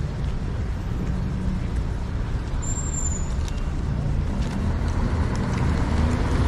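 Steady road traffic: the engines and tyres of passing cars, with a short high squeal about three seconds in.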